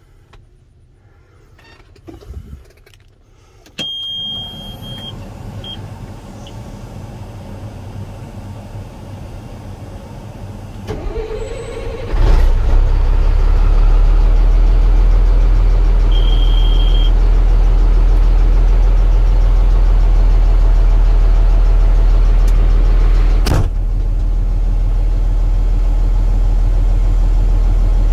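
Diesel engine of a 2007 Peterbilt 335 dump truck heard from inside the cab. About four seconds in there is a steady warning beep as the ignition comes on. About eleven seconds in the starter cranks for about a second, then the engine starts and runs at a steady idle. A short beep comes midway through, and a single sharp knock near the end.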